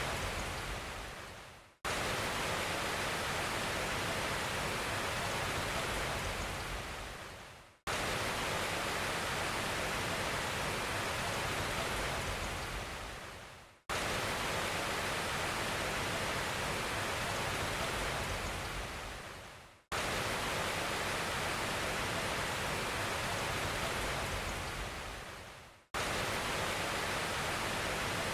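Steady rushing noise with no pitch. It repeats in identical stretches of about six seconds, each starting abruptly, fading out over about a second and breaking off before the next one starts.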